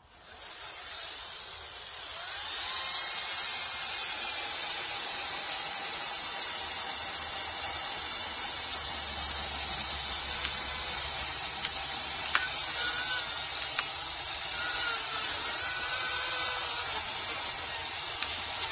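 Ryobi 40V battery chainsaw cutting into a tree trunk. It builds over the first two or three seconds, then runs steadily with a high, hissing chain-in-wood sound.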